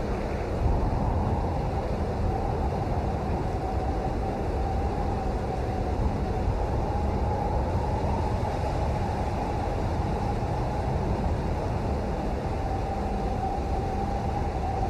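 Steady rain, an even rush of noise weighted toward the low end, with no single drops or other events standing out.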